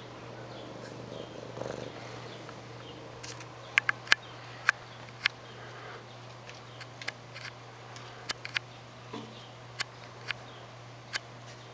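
A Sphynx cat purring steadily close to the microphone, with a dozen or so sharp clicks and taps scattered from about four seconds in.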